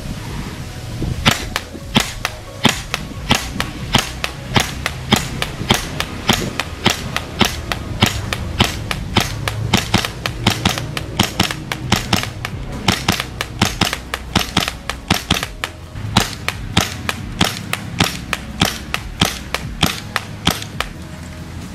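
Poseidon FMG-9 gas blowback airsoft replica firing in semi-automatic: a long string of sharp shots, about two or three a second, starting about a second in.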